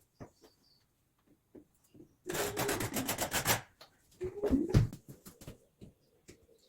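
A damaged spot being filled by hand: a quick run of rubbing, scraping strokes a couple of seconds in, then a few more scrapes and light knocks, with small clicks in between.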